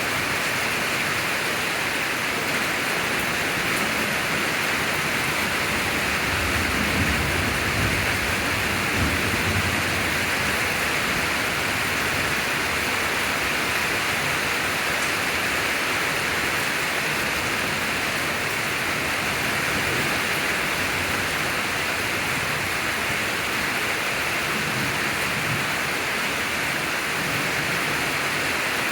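Steady heavy rain hissing down during a thunderstorm, with a low rumble of thunder swelling about a quarter of the way in and a fainter rumble near the end.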